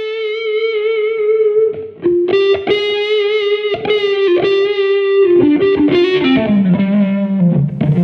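Instrumental music led by a distorted electric guitar. It holds one long note with vibrato, then plays a run of quick notes that steps down in pitch near the end.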